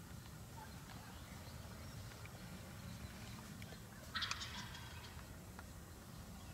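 A short, rapid rattle about four seconds in, the loudest sound here, over a low steady background rumble.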